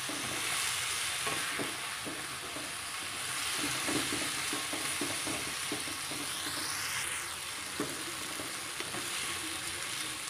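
Sliced bell peppers and zucchini sizzling in oil in a nonstick wok. A spatula keeps stirring and tossing them, giving a steady sizzle broken by many short, irregular scraping strokes against the pan.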